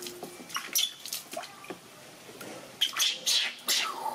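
Water splashing and dripping in quick, irregular bursts as a wet baby monkey is washed by hand, with a few short high squeaks from the monkey.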